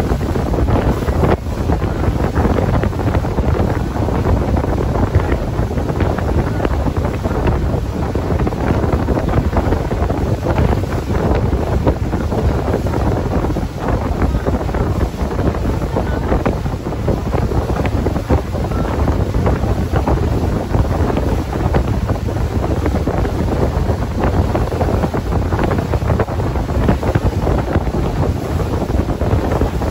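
Loud, steady wind buffeting the microphone aboard a small open speedboat under way, with the boat's running noise over the water beneath it.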